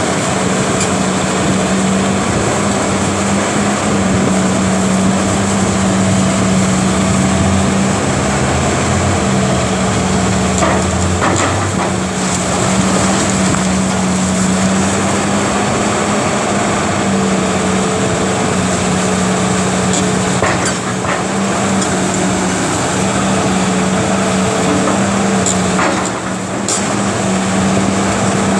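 Caterpillar 330B hydraulic excavator's diesel engine running steadily with a constant hum as its demolition grapple works on a brick wall. Sharp cracks of breaking masonry come in pairs about a third of the way in, about two-thirds of the way in and near the end.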